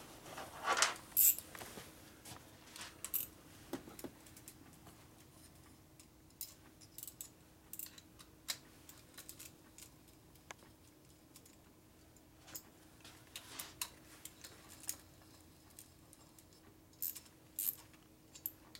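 Scattered light metallic clicks and clinks of hand tools and engine parts being handled, with a louder clatter about a second in and a few more near the end, over a faint steady hum.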